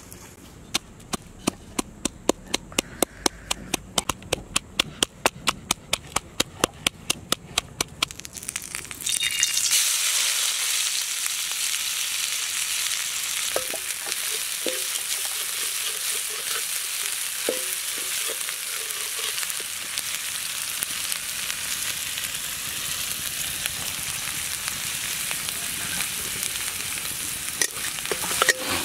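Rapid sharp clicking, about five clicks a second, for the first eight seconds. Then, about nine seconds in, food hits hot oil in a pan and sizzles loudly and steadily, with a few light knocks of a stirring utensil.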